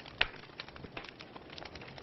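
Wood fire crackling in a fireplace: irregular sharp pops and snaps over a soft hiss of burning, with one louder pop a fraction of a second in.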